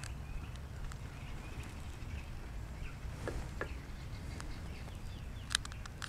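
Quiet outdoor ambience: a steady low rumble with faint bird chirps. There are two soft clicks about three seconds in and a sharper click near the end.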